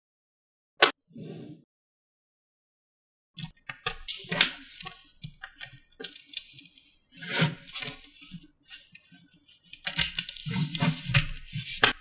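Small magnetic balls clicking and rattling together as they are snapped on and pulled apart: a single sharp click about a second in, then after a short silence a long run of quick clicks and rattles, and another dense run near the end.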